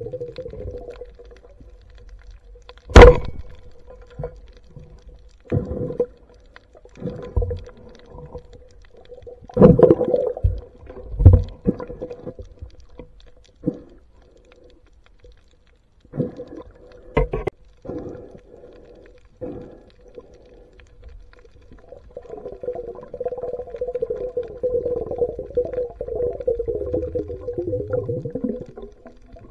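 Underwater sound picked up by a camera in its waterproof housing while spearfishing: a steady faint hum, one sharp crack about three seconds in, a string of dull knocks and thumps through the middle, and a longer wavering rush of water noise near the end.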